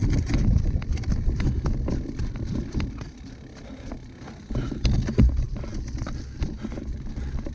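Cyclocross bike ridden over rough ground: a low, uneven rumble of wind and tyres with many sharp rattling clicks and knocks from the bike. It eases off briefly about three seconds in, then picks up again.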